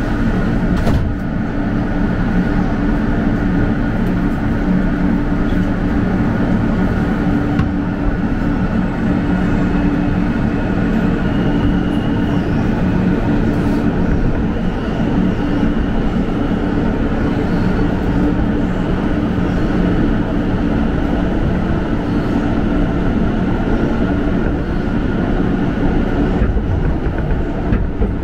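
R160 subway train pulling out of the station and picking up speed, heard from inside the car: a steady rumble of wheels on rail under the propulsion hum, with a high whine coming in about halfway through.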